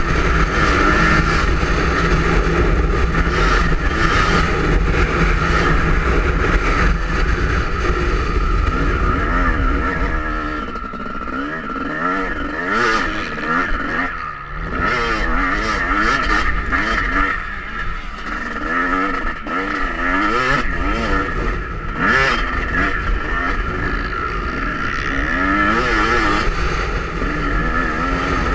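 Yamaha YZ250 two-stroke motocross engine heard from on the bike as it is ridden, its revs rising and falling repeatedly through the middle as the throttle is worked. Strong wind rumbles on the microphone throughout.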